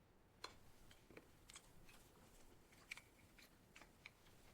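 Near silence with a handful of faint, scattered light clicks.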